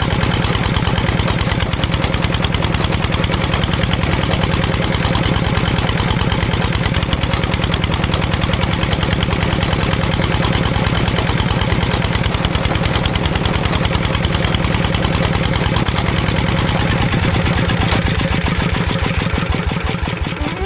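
A small engine running steadily with a fast, even chugging beat, powering a miniature well-drilling rig and its water pump.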